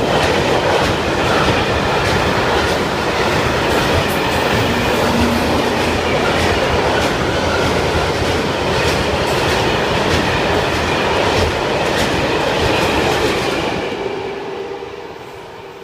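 Freight train of tank wagons rolling past, with a steady loud rumble and repeated clickety-clack of wheels over the rail joints. The sound dies away over the last two seconds or so as the train moves off.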